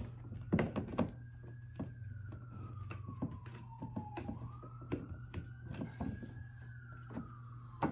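A rubber mallet tapping repeatedly on the black axle-end cap of a plastic ride-on push car's wheel, with a few firmer blows about half a second to a second in. Under the taps a siren wails faintly, slowly rising and falling twice.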